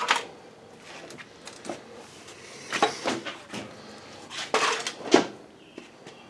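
Knocks and clunks of objects being shifted and handled, in three clusters: at the start, about three seconds in, and the loudest around five seconds in.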